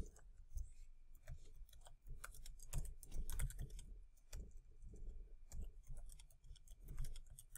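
Typing on a computer keyboard: a run of irregular key clicks as a short line of text is typed out.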